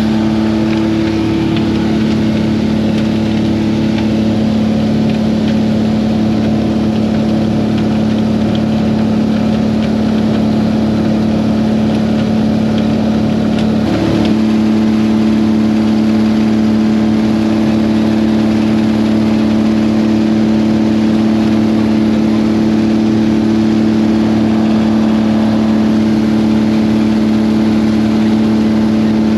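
Light aircraft's piston engine and propeller running in steady cruise, a constant droning hum with a slight change in tone about halfway through.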